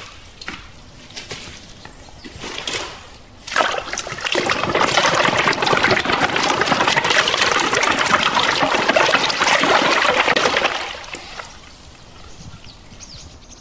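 Running water splashing steadily, starting about four seconds in and stopping about eleven seconds in, with fainter trickling and dripping before and after.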